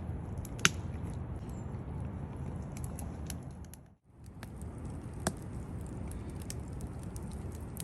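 Scattered sharp snaps and crackles of wood over a steady low rumble, with louder snaps near the start and about five seconds in. The sound cuts out for a moment about four seconds in.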